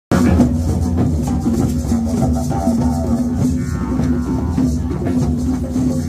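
Didgeridoo playing a continuous low drone with shifting overtones, over a group of hand drums (djembes) beating along.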